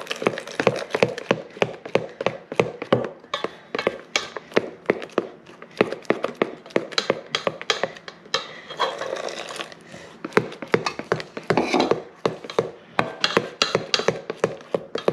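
A utensil stirring a thick slime mixture in a bowl, knocking against the bowl in a quick, uneven run of taps, about two or three a second.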